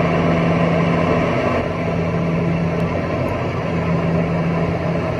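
Steady cabin noise inside a Boeing 717-200 near the rear-mounted Rolls-Royce BR715 turbofan engines running at low power before takeoff: a constant low hum over an even rush of air.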